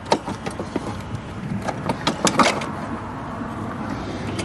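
Scattered clicks and knocks of a GY6 scooter carburetor being twisted and worked loose from its rubber intake manifold by hand, over the first two seconds or so. A steady low background hum runs underneath.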